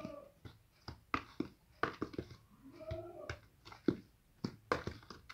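A metal spoon scraping and tapping against a plastic tub while stirring dry gram flour and spices, making irregular clicks and scrapes. There is a faint short pitched sound at the start and again about three seconds in.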